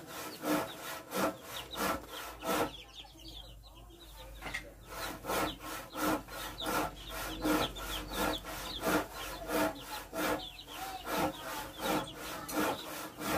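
Rhythmic rasping strokes, about two and a half a second, with a short break about three seconds in; chicks peep faintly throughout.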